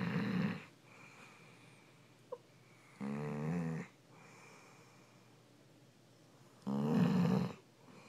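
Yellow Labrador retriever snoring in her sleep: three loud, pitched snores, each under a second long and about three and a half seconds apart, with quieter breaths between them.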